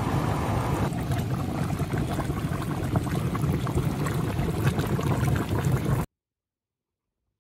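Volcanic hot-spring vents bubbling and gurgling, with sulfur gas rushing out of the ground: a loud, dense, churning noise that cuts off abruptly about six seconds in.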